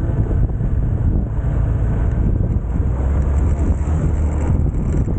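Motorcycle riding along with its engine running, heavily overlaid by wind buffeting the microphone; a steady, loud, low rumble with no pauses.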